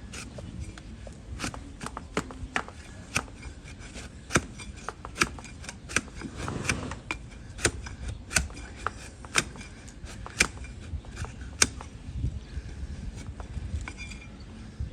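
Hand hoof-trimming tools cutting into a donkey's hoof: a string of sharp cutting snaps at an irregular pace, about one or two a second, with a longer scrape about halfway through.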